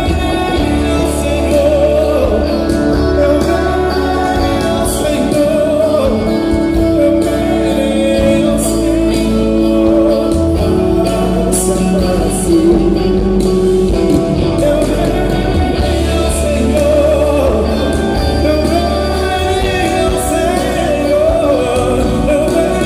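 Live band with drums, electric guitar and keyboard playing a gospel song, with singing over it. Heard from the audience in a large hall.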